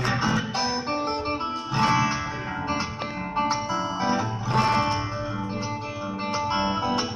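Solo cutaway acoustic guitar being played, a busy run of plucked notes over a steady bass line, with sharp, percussive attacks.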